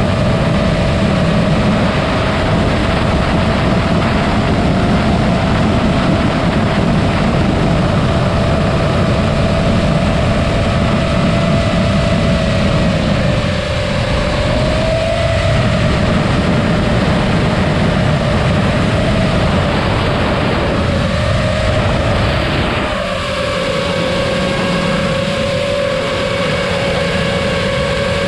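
FPV quadcopter motors and propellers whining steadily as the drone flies, over rumbling wind buffeting on its onboard camera's microphone; the pitch wavers a little with throttle. About 23 s in the wind rumble drops and higher whining tones join in.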